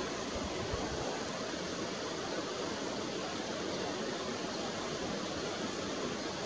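Steady, even hiss of background noise, with no distinct sound rising above it.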